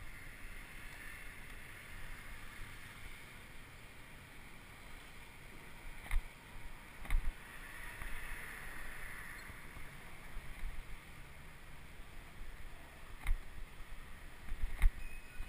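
Steady wind rush and tyre noise from a bicycle rolling over city asphalt, picked up by a bike-mounted camera. It is broken by a few sharp knocks as the bike jolts over cracks and bumps in the road, two about six and seven seconds in and two more near the end.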